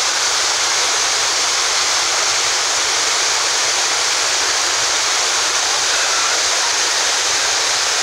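Waterfall pouring onto rocks, with water rushing down over boulders below it: a loud, steady rush of water.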